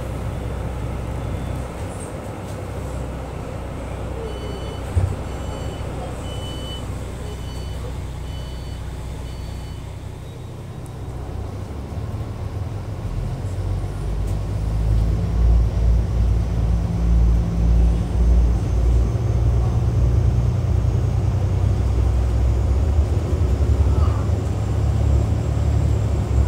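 Cabin of an Alstom Coradia LINT 54 diesel railcar: a low rumble with a run of about eight short high beeps, the door-closing warning, then from about halfway through the diesel engines power up and the rumble grows much louder and throbbing as the train pulls away, with a change in engine note a little later.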